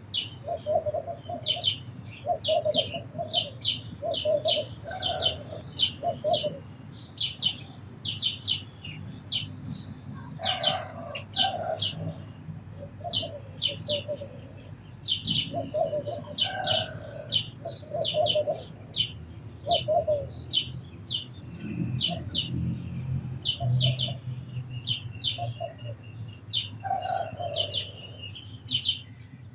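House sparrows chirping steadily, short bright chirps two to three a second, with lower-pitched calls from another bird mixed in and a low rumble underneath.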